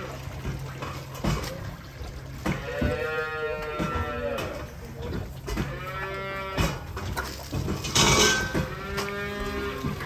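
Young calves bawling, three long calls of about a second each, over a steady low hum. A short hiss about eight seconds in.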